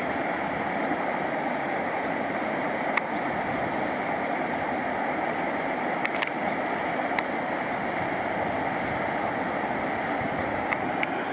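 Waterfall pouring down a rocky gorge: a steady rush of falling water, with a few faint ticks.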